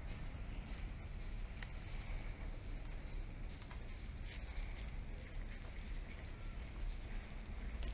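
Freezing rain in an ice storm, with scattered small ticks and patter over a steady low rumble.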